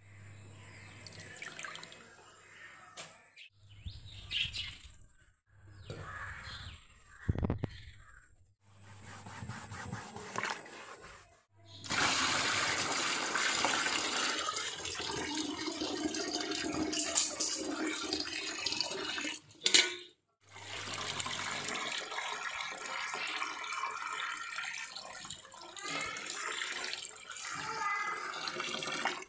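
Water pouring in a stream into a plastic tub onto aquarium gravel, rinsing it. The pour is a steady, loud splashing that breaks off for a moment about two-thirds of the way through. Before it come quieter, short bouts of sloshing and splashing as hands work in the tub water.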